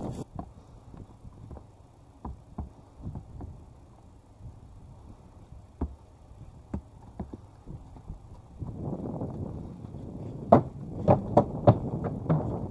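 Kentucky Mountain mare's hooves stepping: scattered light clops and knocks at first, then a run of loud sharp knocks near the end as she steps onto wooden boards.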